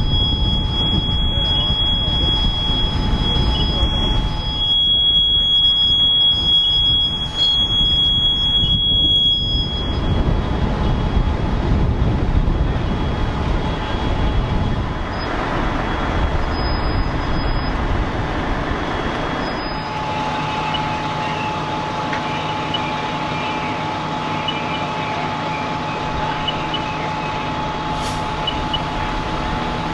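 Fire trucks' diesel engines running steadily at the fire scene, a dense low rumble with a steady high-pitched tone over it for the first ten seconds or so. About two-thirds of the way through, the sound changes to a smoother, even engine hum with a steady whine.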